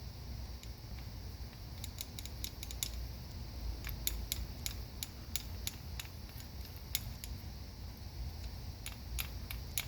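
Irregular small metallic clicks and taps as a homemade aluminium wire-stripping tool is handled and its gauge adjusted, coming more often from about two seconds in.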